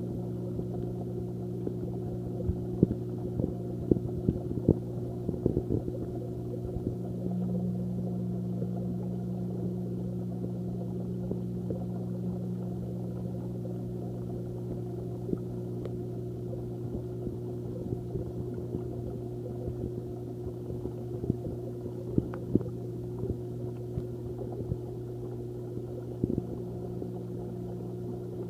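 Steady low mechanical hum, typical of an aquarium pump or filter, with scattered light clicks, most of them in the first few seconds.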